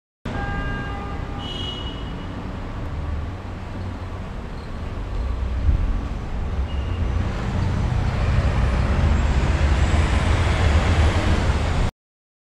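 Steady noisy rumble, with a few faint thin tones near the start. It grows louder about halfway through and cuts off suddenly near the end.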